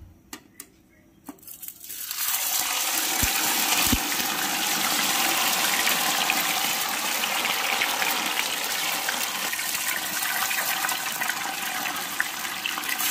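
Batter-coated paneer cubes deep-frying in hot oil in a kadhai, their second fry. After a few light clicks, a loud, steady sizzle starts about two seconds in and keeps going.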